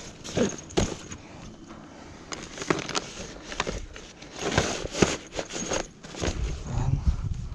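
Irregular rustling, crackling and sharp clicks of things being handled, with a heavier low rumble starting about six seconds in.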